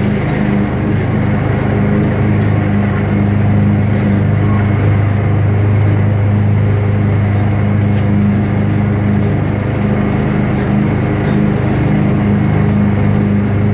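Gravely ZT XL-60 zero-turn mower's engine running steadily as the mower drives, heard from the seat as a loud, even low hum.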